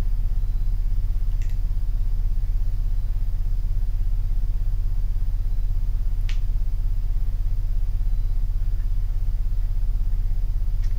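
Steady low hum in the amplified background of a voice-recorder recording of a quiet room, with a faint click about a second and a half in and a sharper tick about six seconds in.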